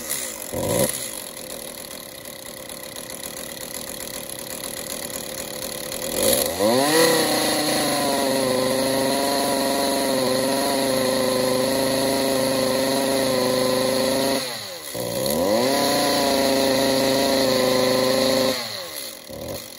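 Stihl MS 192 top-handle two-stroke chainsaw engine running rough and unsteady at idle, then revved about six seconds in to a pitch that holds flat instead of climbing. It dips and picks back up once, and drops off near the end. The owner takes this for a restricted exhaust, and the spark arrestor screen is badly clogged with carbon.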